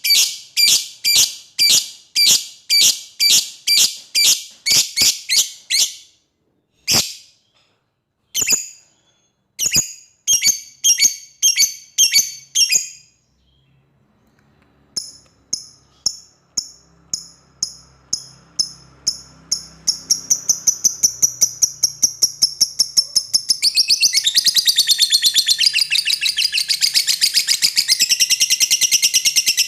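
Lovebird calling: high, sharp chirps about two a second, broken by short pauses. They then come faster and faster and, about two-thirds of the way in, run together into a long, loud, rapid chattering trill. This is the long 'ngekek' chatter, a lovebird calling out to a rival.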